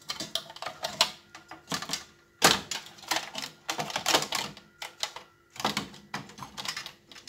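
Hands handling an LCD TV's power-supply board and its plug-in wire connectors: irregular clicks and light plastic knocks, the loudest about two and a half seconds in.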